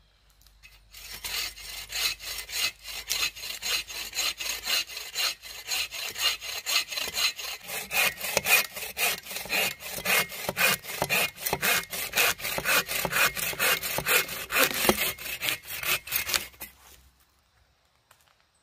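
Hand saw cutting through a fallen, sap-soaked pine log (fatwood), in a steady run of quick back-and-forth strokes that starts about a second in and stops near the end.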